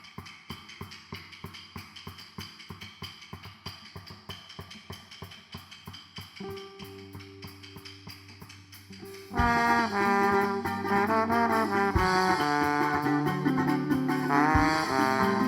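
Instrumental intro of a live band song: a quiet, quick, steady ticking percussion pattern, joined by low held bass notes about six seconds in, then the full band comes in loudly with the melody about nine seconds in.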